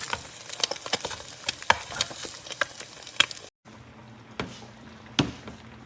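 Food sizzling in a nonstick sauté pan, with frequent crackling pops of hot oil. About three and a half seconds in, the sound cuts off abruptly and resumes as a quieter sizzle with only a few pops and a faint low hum.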